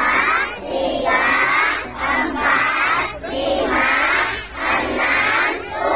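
A group of young children shouting a count together in Indonesian, chanting the numbers in unison at about one number a second.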